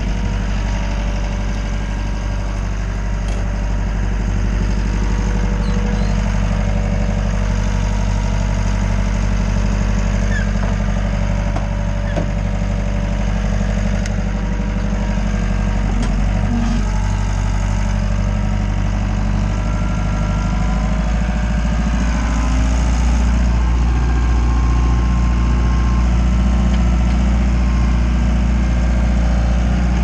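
Wacker Neuson 901s skid steer engine running steadily, heard from the operator's seat, growing a little louder about two-thirds of the way through.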